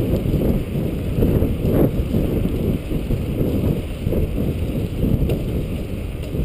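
Wind buffeting the microphone of a camera on a moving bicycle: a steady, gusty low rumble.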